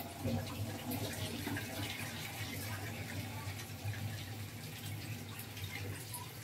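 Water bubbling in a cooking pot, with scattered small pops over a low steady hum.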